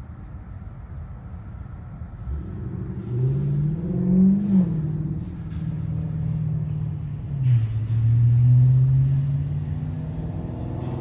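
Siemens S70 light rail train pulling away, its traction motors whining: the pitch rises about three seconds in, falls back about seven seconds in, then holds steady.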